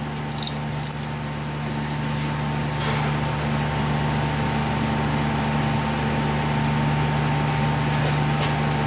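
Steady background hum with a low tone and a fainter higher tone, under a few light metallic clicks as an A/C discharge hose fitting is offered up to a new compressor's ports. The clicks come just after the start, around three seconds in, and again near the end.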